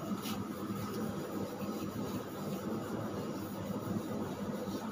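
Handheld whiteboard eraser rubbing back and forth across a whiteboard, wiping it clean, over a steady background hum.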